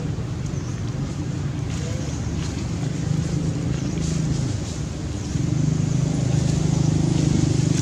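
A motor engine running steadily with a low hum, growing louder about five seconds in.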